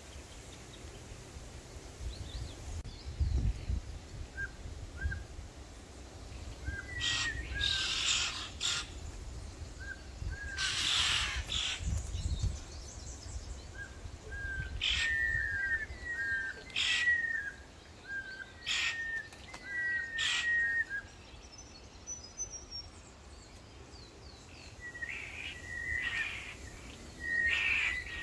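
Birds calling in eucalypt bushland: many short, repeated chirps, often in pairs, with several louder harsh calls between them. A low wind rumble on the microphone runs underneath.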